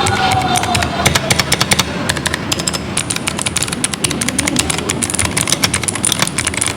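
Keychron Pro mechanical keyboard being typed on fast, many keystrokes a second.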